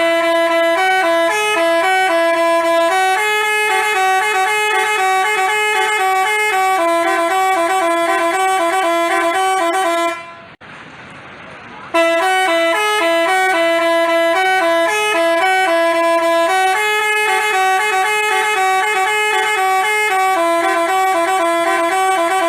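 Basuri telolet bus horn playing a multi-note melody of steady, stepping tones. About ten seconds in it breaks off for a second and a half, then plays the tune again.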